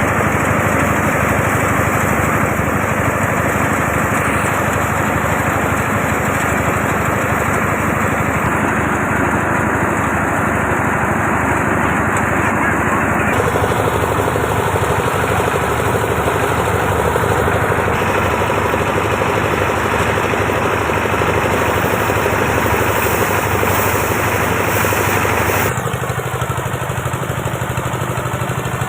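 A small engine running steadily under load, its tone shifting about halfway through and easing slightly near the end.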